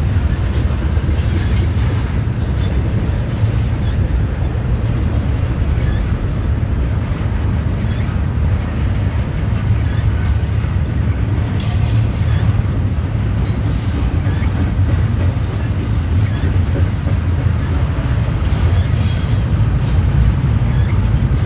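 CSX double-stack intermodal freight train passing close by, its container well cars rolling over the rails in a loud, steady rumble. Brief high-pitched squeals break through about three times.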